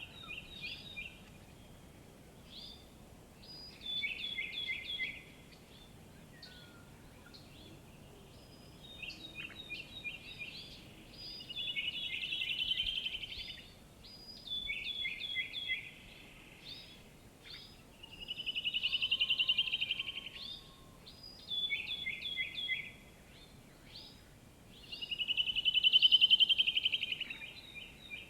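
Birds calling in a morning chorus: short, repeated chirps, with a louder rapid trill that swells and fades three times, about every seven seconds, over a faint steady background hiss.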